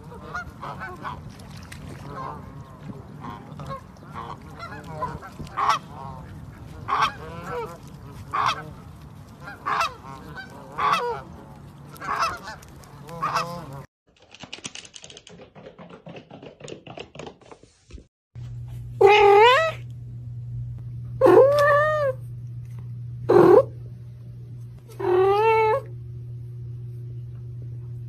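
Canada goose calling over and over, a short call about once a second. After a cut, a cat meows loudly four times, each meow rising and falling in pitch.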